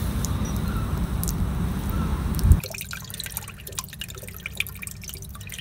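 A loud low rush as a dockside water tap is turned on for the flush, then, from about two and a half seconds in, fresh flushing water dripping and trickling out of an open port on a Volvo Penta D1-30 marine diesel's block in many quick small drips and splashes.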